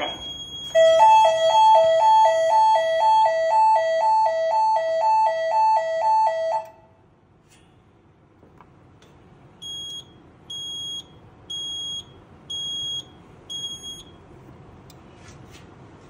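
Fire alarm system sounding a loud hi-lo two-tone alarm, switching back and forth two or three times a second for about six seconds, then cutting off suddenly. A few seconds later the Notifier NFS-320 control panel gives five short high beeps, about a second apart.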